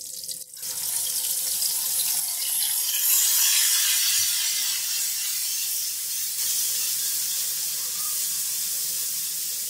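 Garlic and ginger paste sizzling in hot ghee with whole spices as it is stirred. The sizzle starts about half a second in, when the wet paste hits the fat, and then holds steady.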